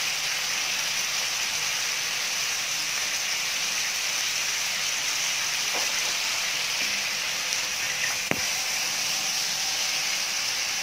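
Beef with ginger-garlic paste and raw sliced onion sizzling in hot oil in a pan, a steady hiss. The slotted spatula clicks against the pan twice in the second half, the second click sharper.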